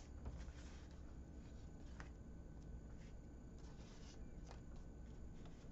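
Faint light taps and rustles of cardstock being handled and set down, a few soft clicks over a low steady hum.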